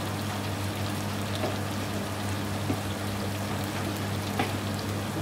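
Spiced chicken curry sizzling in a large pan on a gas hob: a steady crackle with a few sharper pops, over a steady low hum.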